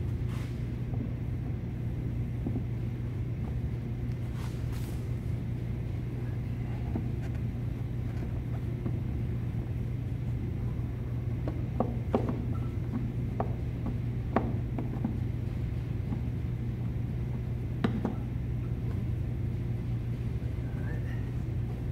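Steady low hum in the background, with a few sharp clicks and knocks of hard plastic as the air filter housing cover is pushed and worked into place by hand. The clicks come singly and in a quick pair, about twelve, fourteen and eighteen seconds in.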